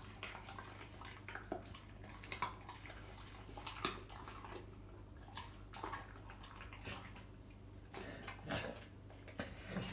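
American Bully dog licking and smacking as it picks up meat scraps off a tiled floor, in short irregular sounds spaced about a second apart.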